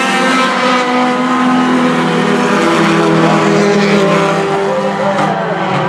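A pack of four-cylinder stock cars racing on a short oval, their engines running together at steady speed in several overlapping pitches.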